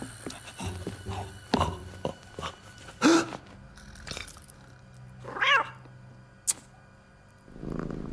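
A cat meowing twice, about three seconds in and again about five and a half seconds in, between scattered sharp clicks and knocks.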